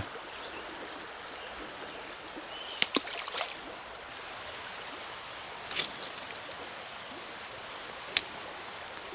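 Creek water running over a shallow stretch, a steady rushing hiss. A few brief clicks and taps sound about three seconds in and again near six seconds. A sharper single click near the end is the loudest sound.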